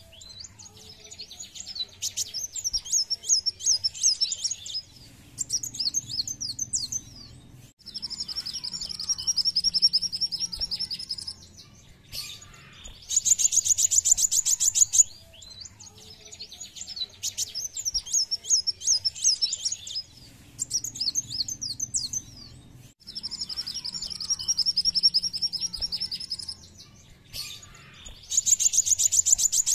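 Kolibri wulung sunbird singing in bouts a few seconds long: high, rapid twittering phrases alternating with fast, even trills, with short pauses between bouts.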